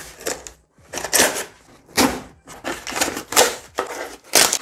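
Utility knife slitting the packing tape of a cardboard shipping box: a string of short scraping, ripping strokes with the cardboard rustling under the hand.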